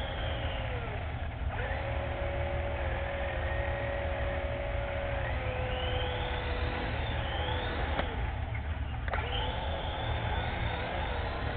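Small electric motor and rotors of a Black Cat three-channel RC helicopter running with a steady whine, which drops away and spins straight back up about a second in and again about eight seconds in, with a click at the second cut. A steady low rumble runs underneath.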